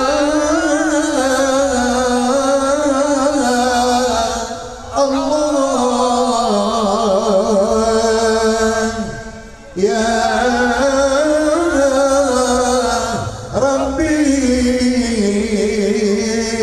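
Islamic sholawat chanting: voices sing long, held, wavering melodic lines in four phrases, each ending in a short break.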